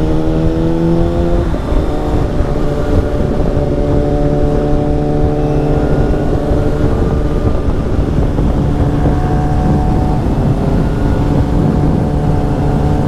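Kawasaki ZX-6R 636 inline-four running through an Akrapovic slip-on exhaust under way. The engine note climbs in pitch, drops about a second and a half in as the rider shifts up, then holds steady over heavy wind rush.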